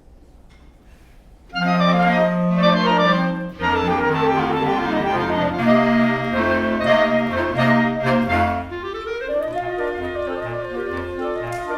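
Clarinet ensemble playing, starting with a sudden loud chord about one and a half seconds in, then several lines of notes moving together over a low bass part.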